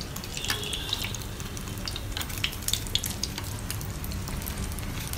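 Egg-dipped chicken cutlets deep-frying in hot oil: a steady sizzle with many sharp crackles and pops.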